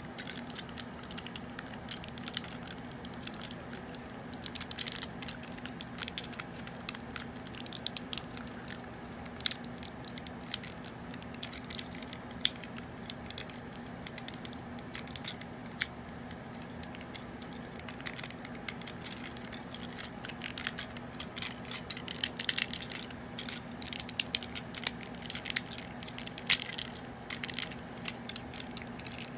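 Plastic clicks and snaps of a Transformers Hot Rod action figure's joints and panels being moved and pegged by hand as it is transformed, coming thicker in the second half, over a steady low hum.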